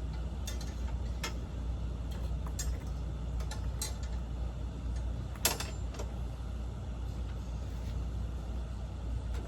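Scattered light clicks and knocks of frame parts being handled as the hip loop is fitted onto an animatronic's frame, over a steady low hum; the sharpest knock comes about five and a half seconds in.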